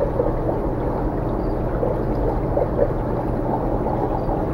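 Steady low hum and rushing, water-like noise of aquarium filtration running, with no distinct events.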